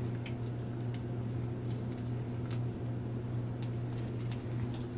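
Pepperoni slices starting to sizzle in a hot frying pan: scattered faint crackles and pops, over a steady low hum.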